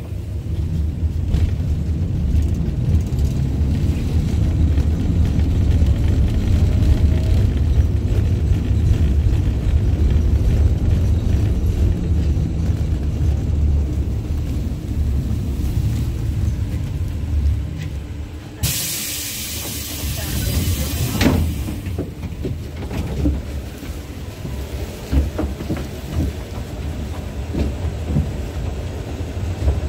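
Inside a moving LVS-86K tram: a steady low rumble of the car running along the rails. Past the middle comes a hiss of about two seconds, followed by a sharp click.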